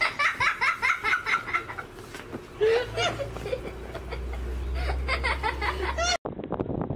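People laughing in quick, high-pitched giggling bursts, with a low steady rumble under the later part. The sound cuts off abruptly about six seconds in.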